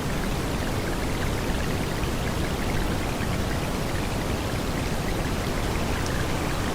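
Steady rain, an even hiss of falling drops with no break or change.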